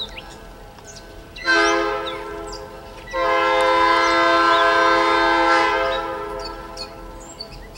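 A Maryland Midland GP38-3 diesel locomotive's multi-note air horn gives a short blast about a second and a half in, then a long blast of nearly three seconds that fades away. This is the closing short-and-long of a grade-crossing signal. Birds chirp faintly near the end.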